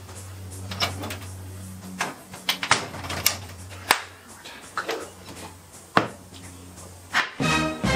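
Short lengths of wooden board, cut from reclaimed bed slats, knocking and clacking against each other and the wooden bench as they are handled and stacked: a dozen or so irregular sharp knocks over a low steady hum.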